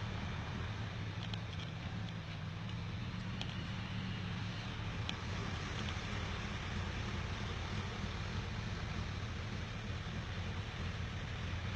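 An engine idling steadily, with a few faint light clicks in the first half.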